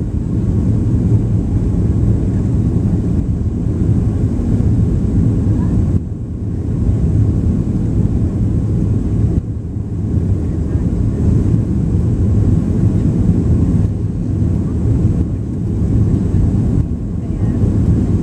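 Cabin noise inside a Boeing 737 airliner on final approach: a steady low roar of the jet engines and the air rushing past the fuselage, dipping slightly twice in the middle.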